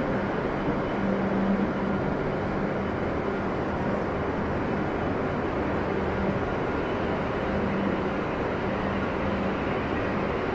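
Steady ambient hum and rushing noise of an underground shinkansen station platform, with a faint low hum that comes and goes.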